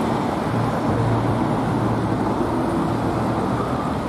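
Steady street traffic noise from vehicle engines running in slow-moving city traffic, with a low engine hum throughout.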